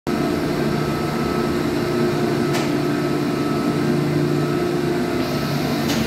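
Chilled-water pumps running: a steady mechanical hum made of several steady tones, with one short click about two and a half seconds in.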